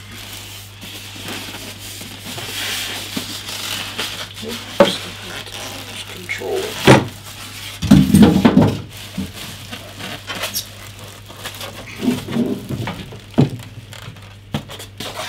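Unboxing handling noise: a plastic bag crinkling and polystyrene foam end caps being worked off a PC case, with sharp knocks and a cluster of heavy thumps about eight seconds in as the case is set down on the table.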